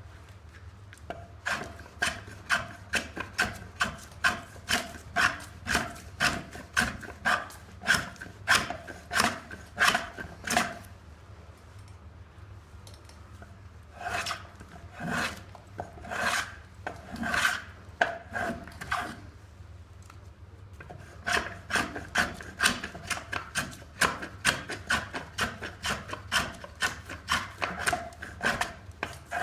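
Hand plane shaving a pine log in quick, repeated strokes, about two a second, in three runs broken by short pauses.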